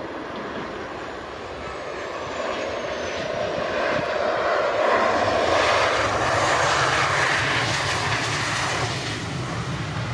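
Airliner engines passing close by: the noise swells to a peak about halfway through, then begins to fade, with a thin high whine falling in pitch over the first few seconds.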